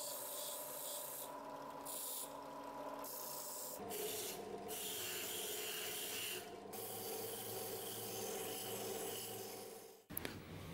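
Bench drill press running a small abrasive wheel, its motor humming steadily, while a metal scabbard fitting is pressed against the wheel for a hissing grind that breaks off and starts again several times. The sound cuts off abruptly just before the end.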